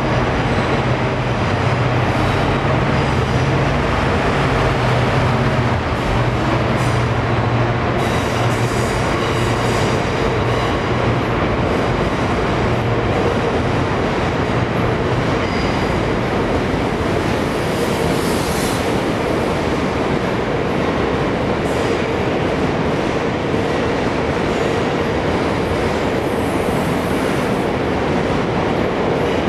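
Class 66 diesel locomotive passing with a freight train of covered hopper wagons: the locomotive's low engine drone is strongest for about the first ten seconds. After that comes the steady rumble and clatter of the wagon wheels on the rails, with a brief high squeal about 18 seconds in.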